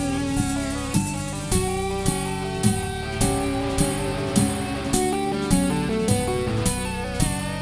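Guitar-led music over a steady drum beat, a sharp cymbal or snare hit landing about twice a second, with a bass line and a changing melody.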